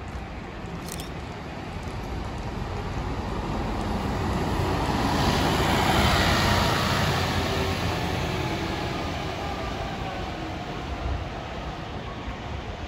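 City bus driving slowly past close by; its engine and tyre noise builds to a peak about halfway through, then fades as it moves away.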